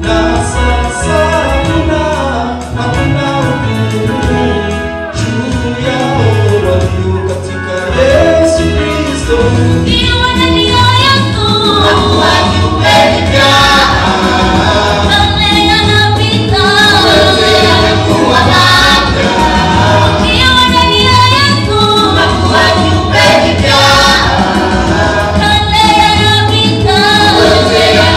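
Gospel song: voices singing together as a choir over a steady bass beat, fuller from about ten seconds in.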